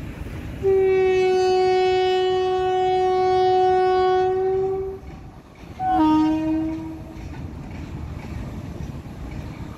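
A locomotive horn sounds one long blast of about four seconds, then a shorter, lower blast a second later, over the steady rumble of a passing freight train of open wagons.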